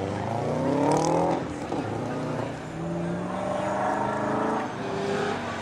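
Straight-piped 4.4-litre V8 of a 1997 BMW 540i revving up hard, the pitch climbing twice with a drop in between, and a short third rise near the end.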